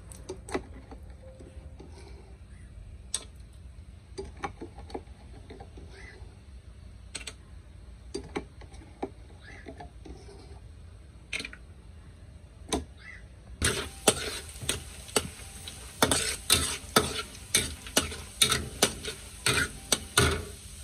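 Chopped garlic frying in oil in a metal wok, with a low sizzle and scattered pops. About two-thirds of the way in it grows louder as a metal spatula stirs, scraping and knocking against the wok in quick strokes.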